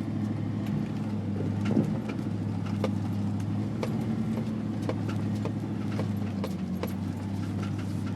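Four-wheel-drive vehicle's engine running steadily at low speed over a rough dirt track, with frequent short knocks and rattles as it bounces over bumps.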